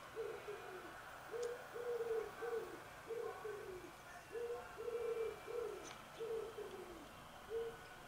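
Wood pigeon cooing: repeated phrases of low coos, some notes drawn out and some dropping in pitch at the end.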